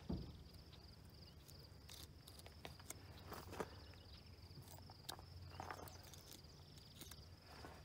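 Faint, scattered ticks and scrapes of a knife cutting along a catfish's back beside the dorsal fin, over a steady, high insect trill.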